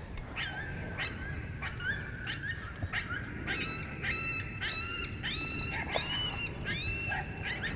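Predator call sounding a fast run of dog-like whimpering yelps, about two to three a second, each jumping up in pitch and then holding; the yelps turn higher and fuller about halfway through. It is the calling that is luring a coyote in.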